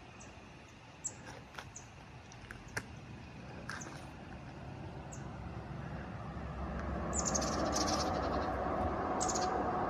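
Outdoor creekside ambience: a few short, sharp bird chirps or ticks during the first few seconds, then a steady rushing noise with a low rumble that swells over several seconds and holds.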